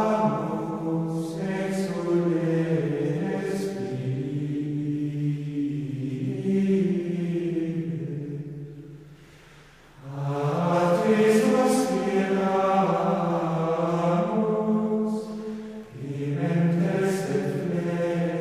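Background music of chanted vocal singing in slow, drawn-out melodic phrases. The singing fades down about nine seconds in, resumes a second later, and breaks briefly again near sixteen seconds.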